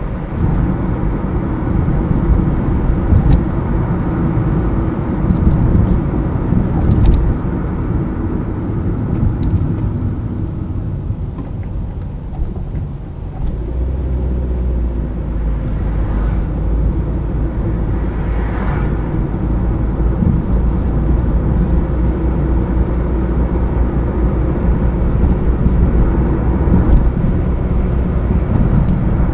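Car driving along a highway: steady tyre-on-road and engine noise. About halfway through, a deeper low hum sets in and holds.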